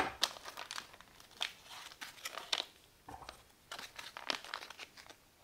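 Foil-laminate ration pouch of a Bridgeford filled French toast crinkling and rustling in short, irregular bursts as it is handled and pulled open.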